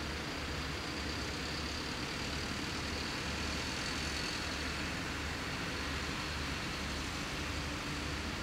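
A box lorry driving past on a road, its engine and tyres giving a steady rolling noise.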